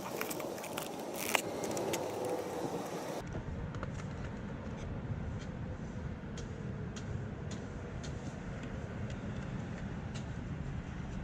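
Light clicks and rattles of a fog-light bulb and its plastic socket being handled and fitted, over a steady low rumble.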